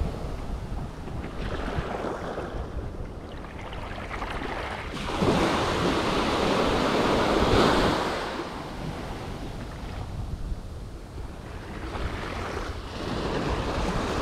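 Surf breaking and washing up a sandy beach, swelling loudest from about five to eight seconds in and easing off again, with wind buffeting the microphone.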